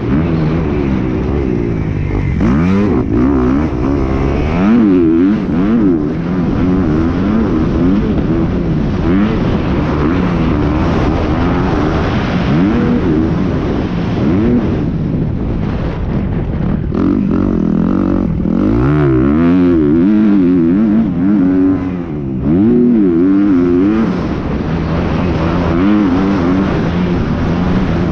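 Motocross dirt bike engine, heard close from the rider's helmet, revving up and falling back again and again as the rider works the throttle and gears around the track.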